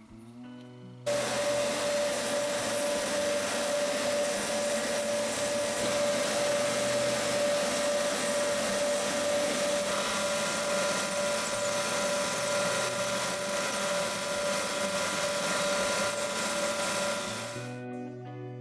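A power tool's motor running steadily with a constant whine over a rushing noise. It comes on abruptly about a second in and stops shortly before the end.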